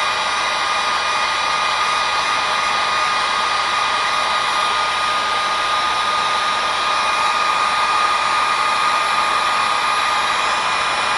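Heat gun blowing steadily, its airflow rushing with a steady motor whine, as it heats a solder-sleeve splice until the low-melting solder ring melts.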